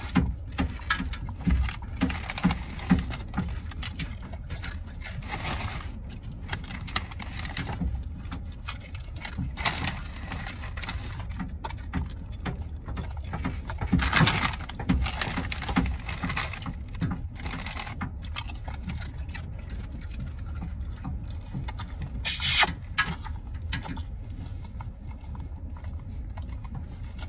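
Wavy potato chips being crunched in quick, uneven bites, and a chip bag crackling briefly twice, about halfway through and again near the end. Under it runs the steady low rumble of the idling car.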